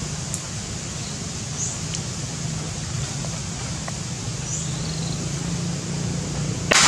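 Outdoor ambience: a steady low hum with a short, high chirp recurring every couple of seconds, and a brief, sharp burst of noise near the end that is the loudest sound.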